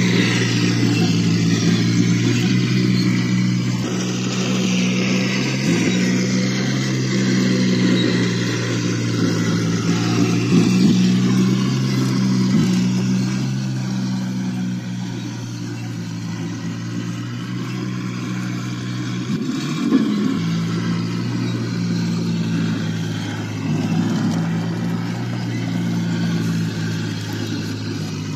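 1/6 scale RC M3 half-track model driving: a steady low hum under motor whine that rises and falls in pitch as it speeds up and slows, with an occasional knock.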